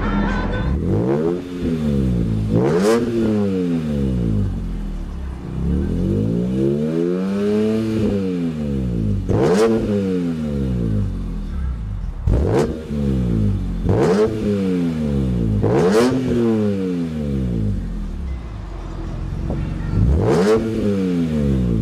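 2002 BMW M3's 3.2-litre inline six heard at the exhaust, revved in about seven quick throttle blips, each a sharp rise in pitch falling back to idle.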